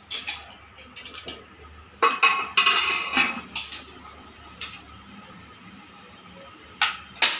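Aluminium pressure cooker lid clattering and clinking against the pot as it is fitted on and the handles locked shut. A run of sharp metal knocks, loudest and busiest about two to three seconds in, with two sharp clinks near the end.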